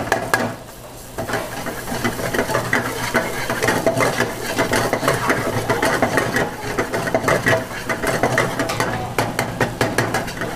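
Onion and ginger-garlic paste being stirred and scraped in a pan of hot oil, a dense run of quick clicks and scrapes starting about a second in. Under it runs a steady low mechanical hum.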